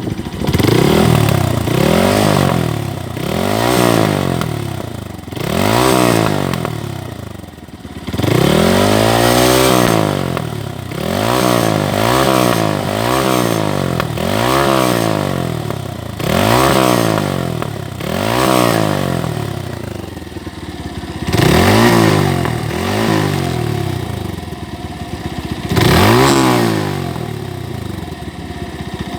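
Motorstar Cafe 150 motorcycle's single-cylinder engine, through its stock muffler with silencer, revved in a string of quick throttle blips from idle, each rising and falling back, with one longer held rev about eight seconds in.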